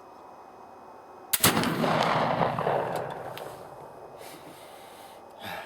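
A .50 calibre Traditions Kentucky flintlock rifle fires once, a black-powder shot loaded with FF Goex behind a 250-grain Lee R.E.A.L. bullet. It is a single sharp report about a second and a half in, with a boom that rolls away over about two seconds.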